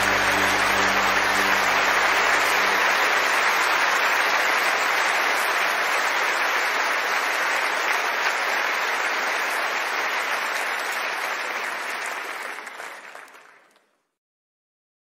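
Audience applauding at the end of a live worship song, with the last held notes of the music dying away in the first few seconds. The applause fades out smoothly near the end.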